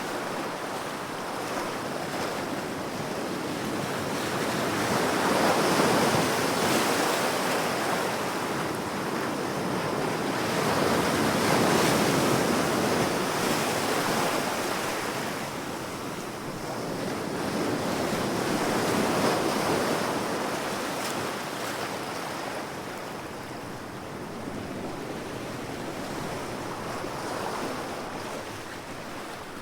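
Ocean surf: waves breaking and washing in, rising and falling in slow surges about every six to seven seconds, three strong swells and a weaker one near the end.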